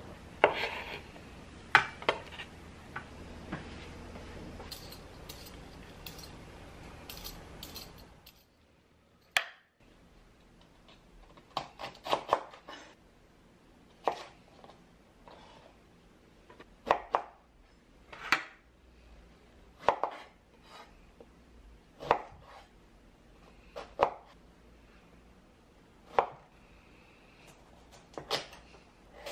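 Kitchen knife chopping on a wooden cutting board. A few cuts go through abalone pieces in the first seconds over a faint steady background hum, which stops about eight seconds in. After that come single chops about every two seconds through asparagus, eggplant and carrot.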